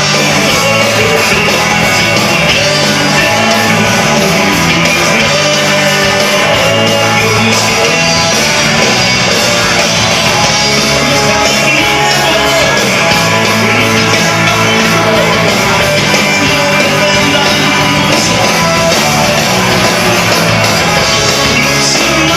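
Live rock band playing loud through a PA system, with a singer's voice over guitar, bass and drums.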